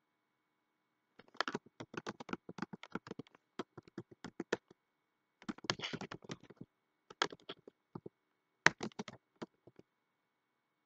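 Typing on a computer keyboard: quick runs of keystrokes in four bursts with short pauses between them.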